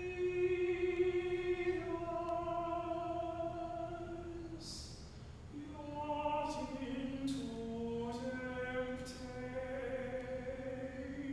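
A single voice singing a slow, unaccompanied chant, holding long notes that step from pitch to pitch, with a short pause for breath about halfway through.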